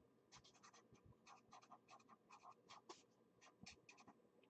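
Pen writing on paper: a quick run of short, faint scratching strokes that stops near the end.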